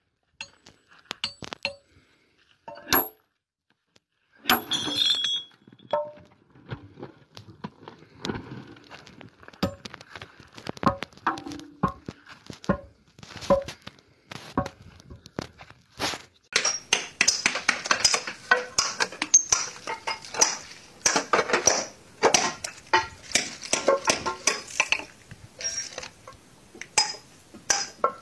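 Sledgehammer striking steel wedges set in a line of drilled holes to split a rock: sharp metallic clinks with a ringing edge. The strikes are scattered at first, then come in a fast, steady run from a little past halfway on.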